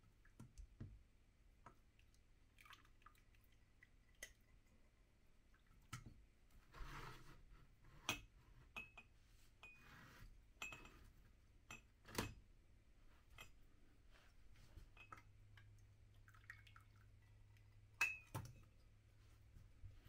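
Ceramic pour-over coffee dripper and mugs handled on a tray: scattered clinks and knocks, loudest about 8, 12 and 18 seconds in, with faint dripping of brewed coffee through the paper filter between them, over a faint low hum.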